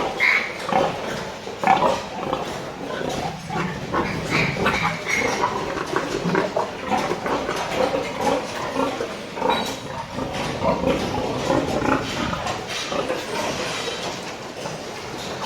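A group of pigs grunting and squealing, with frequent clicks and knocks mixed in.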